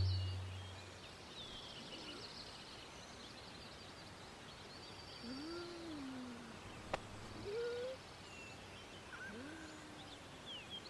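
Faint open-field ambience with small birds chirping here and there and a few lower, drawn-out arching calls. A synthesized tone fades out in the first second, and a single sharp click comes about seven seconds in.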